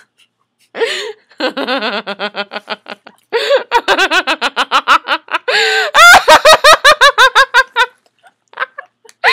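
A young woman laughing hard in three long runs of quick, repeated "ha" sounds. The last run is the loudest and stops about a second before the end.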